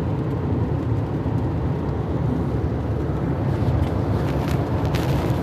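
Steady low rumble of a car on the move, heard from inside the cabin, with a few brief clicks or ticks about four to five seconds in.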